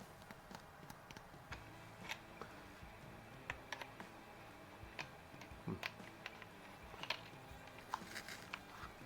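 Faint, irregular clicks and small taps of metal parts being handled and fitted together: a quick-disconnect suppressor adapter being worked onto an air rifle's muzzle.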